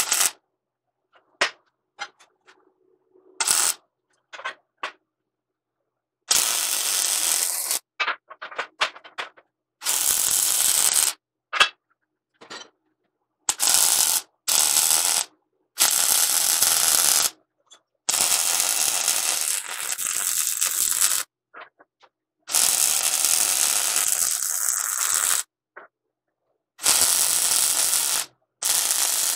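MIG welder crackling as it lays welds on steel tube, in separate passes with silences between: a few short tack welds in the first seconds, then about eight longer beads of one to three seconds each.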